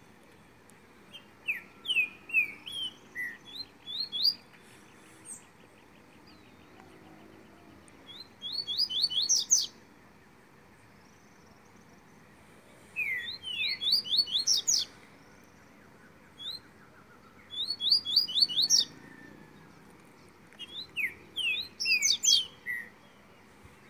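Double-collared seedeater (coleiro) singing: five quick phrases of sharp, sweeping high notes, each a second or two long and a few seconds apart.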